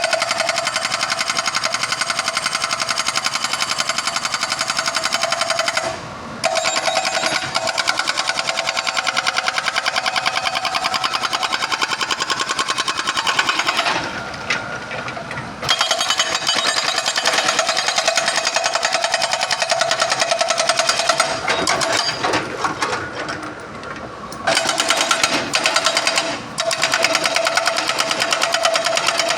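Hydraulic breaker hammer on an excavator pounding rapidly, stopping briefly several times between bouts of hammering.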